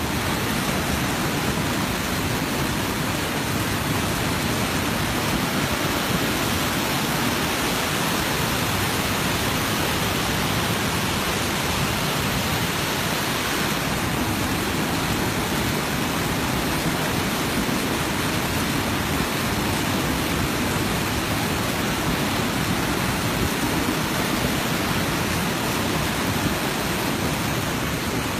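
Steady rush of whitewater from a waterfall and the river below it.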